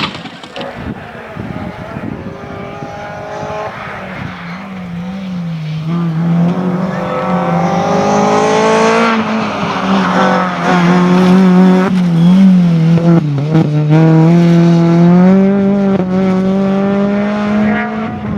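Rally car engine working hard through the gears, its pitch climbing and dropping again and again as it shifts and lifts, growing louder as the car approaches and staying loud near the end.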